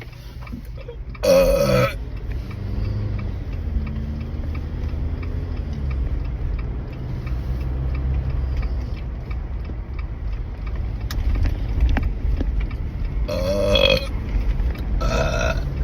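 A person burping loudly three times: one long burp about a second in, then two more near the end, the last one shorter. A low steady rumble runs underneath.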